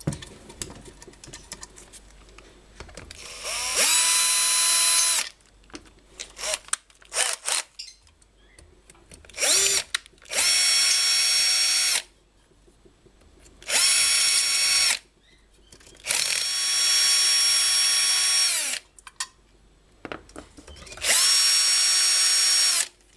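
Bosch cordless drill-driver whining in five runs of one to three seconds, plus one very short burst, each run spinning up and winding down as it unscrews the bolts of a water pump's housing. Small clicks and handling noises fall between the runs.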